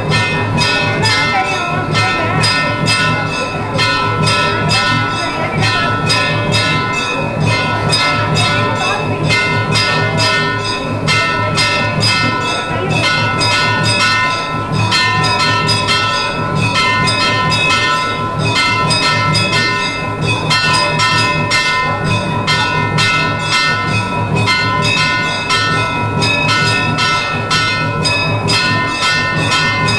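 Temple bells ringing without a break, struck rapidly several times a second over a steady ringing tone.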